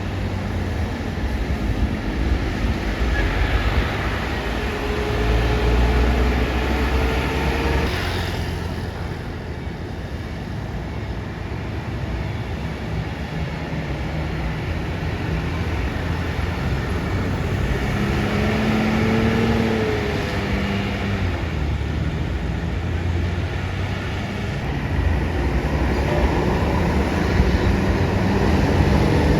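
Heavy diesel buses and traffic passing close by, a deep engine rumble and road noise swelling and easing as each vehicle goes past. Faint short tones come twice, a few seconds in and near the middle.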